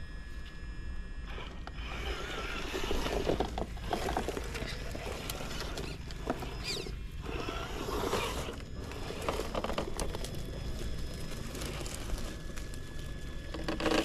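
Traxxas TRX-4 Sport RC crawler's electric motor and gear drivetrain whirring and grinding in irregular spurts as it crawls, with scraping and crackling from the tyres and chassis.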